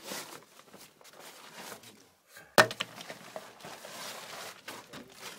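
Rustling and scraping against rock, with a few light knocks and one sharp knock about two and a half seconds in.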